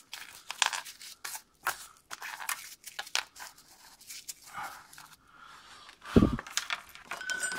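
Rustling and scattered light clicks of a nitrile-gloved hand picking small parts up off a wooden floor, with one dull thump about six seconds in.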